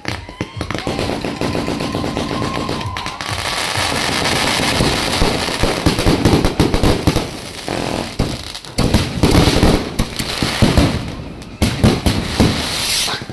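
Aerial fireworks going off close overhead: a rapid, unbroken run of bangs and crackling, thickening into a dense hissing crackle through the middle, with several louder bursts near the end.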